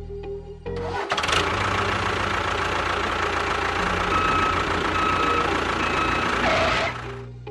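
A motor running steadily for about six seconds, with a faint whine in it. It cuts in suddenly about a second in and cuts off suddenly near the end.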